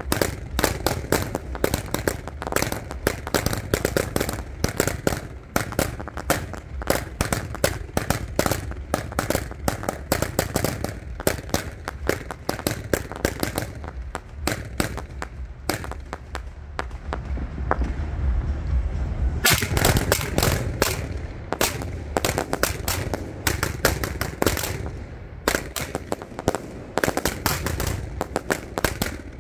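Close-proximity 1.4G fireworks firing in rapid volleys, many sharp reports a second, from comets shooting up and star bursts overhead. About halfway through the reports thin out over a low rumble for a few seconds. Then a dense, louder barrage starts about two-thirds of the way in.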